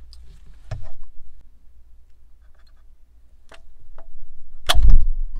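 Metal clicks and clinks of long-nose pliers working a spring-steel mounting clip out of a car radio's metal chassis: a few light ticks, then one much louder snap with a thud near the end.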